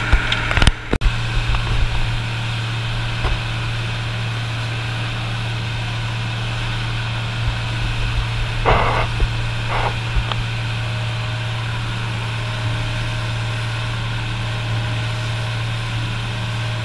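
Engine of a motorized outrigger fishing boat running steadily under way, a constant low drone with the wash of water along the hull. A few brief knocks sound about a second in.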